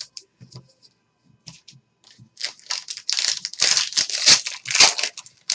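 Trading card pack wrapper being torn open and crumpled by hand: faint rustles and light clicks at first, then loud, dense crinkling from about two seconds in.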